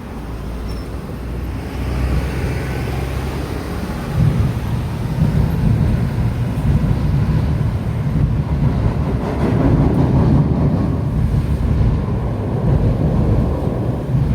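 Seibu Shinjuku Line train passing over the level crossing: a loud low rumble that swells about four seconds in and keeps on.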